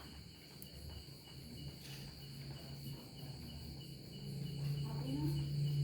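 Steady high-pitched insect chirring, crickets by their sound, with a low steady hum coming in about four seconds in.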